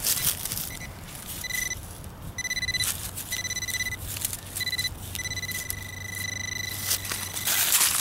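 Metal detector giving a steady high-pitched target tone in five on-off stretches, the last and longest lasting about a second and a half, signalling more metal still in the dig hole. A hand trowel scrapes in the soil a couple of times.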